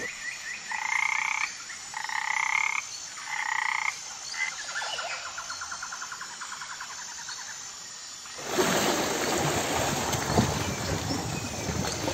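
Frogs calling: three short croaks about a second apart, then a fast pulsing trill. From about eight seconds in, louder surf washing onto a beach takes over.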